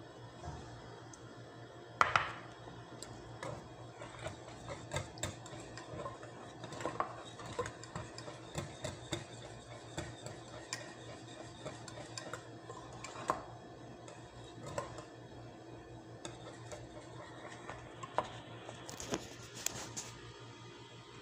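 Steel wire whisk clicking and scraping against a ceramic bowl as a creamy mixture is whisked by hand, in irregular strokes. There are two loud sharp knocks about two seconds in, over a steady low hum.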